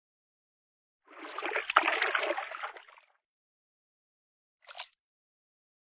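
Cartoon water sound effect: a gurgling splash of about two seconds, then a brief second splash near the end.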